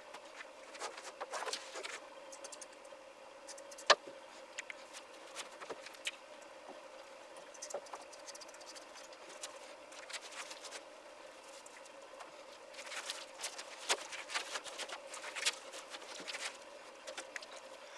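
Faint, scattered rustling and crinkling of a plastic tray liner and a felt wicking mat as they are handled and pressed flat by hand. There is a sharp click about four seconds in and a busier stretch of rustling near the end, over a faint steady hum.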